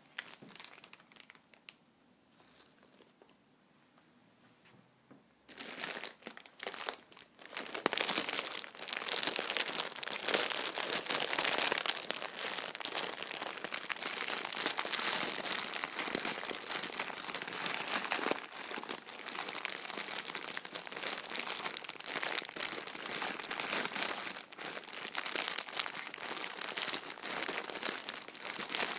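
Packaging being crinkled by hand, starting about five seconds in after a quiet stretch and then going on as a dense, continuous crinkling.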